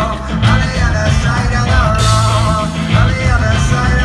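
Live rock band playing: a male lead vocal singing over electric guitar, bass, keyboard and drum kit.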